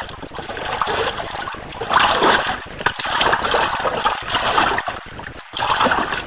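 River water splashing and churning in uneven surges as a person is dragged through it by a hooked catfish.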